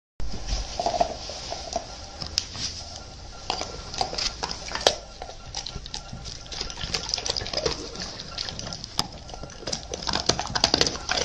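German shepherd licking and sniffing at a dog treat, making scattered, irregular wet clicks over a steady low hiss.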